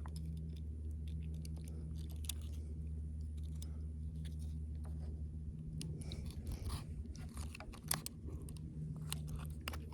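Small clicks, crackles and scrapes of hands and pliers working a deep-set hook out of a largemouth bass, with a steady low hum underneath.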